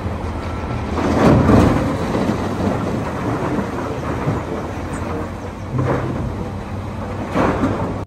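Loose dark earth pouring from a large loader bucket into the steel bed of a tipper truck: a heavy rushing rumble that swells about a second in and again near the end.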